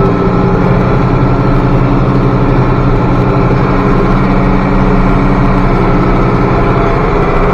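International Harvester 1086 tractor's turbocharged six-cylinder diesel running steadily and loud, with no change in speed.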